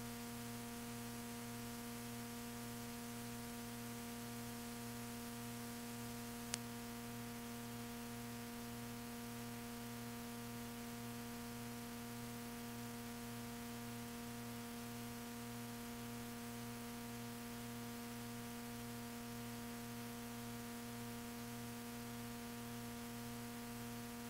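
Steady electrical hum with a faint hiss: the background noise of the recording, with no music playing. A single short click about six and a half seconds in.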